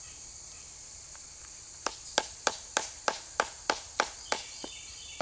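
Knife blade chopping at a block of maple sugar to break off a chunk: a run of sharp taps, about three a second, starting about two seconds in. Insects hum steadily behind it.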